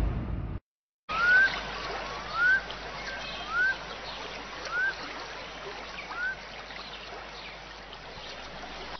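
A whoosh cuts off about half a second in, then running water with a bird calling five times, each a short rising whistle about a second apart.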